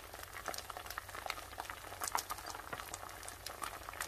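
Thin rice-flour batter bubbling and popping in a hot frying pan as a bánh cuốn sheet cooks, a dense run of small irregular pops and crackles.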